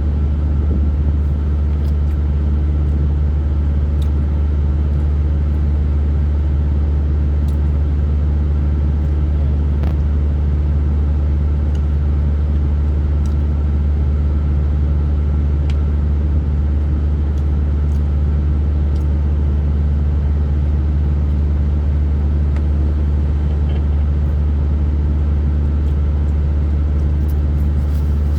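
A steady low motor rumble, even throughout, with a few faint small clicks over it.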